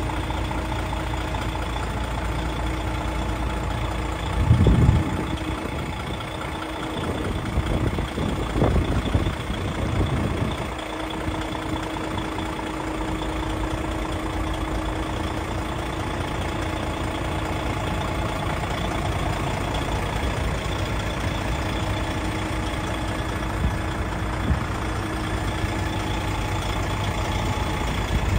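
DAF XF 6x2 tractor unit's six-cylinder diesel engine idling steadily, with a few brief low rumbles about four seconds in and again around nine seconds.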